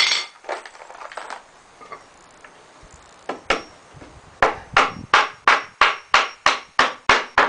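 Hammer driving nails into pallet-wood boards: a couple of blows about three seconds in, then a steady run of about ten strikes, roughly three a second.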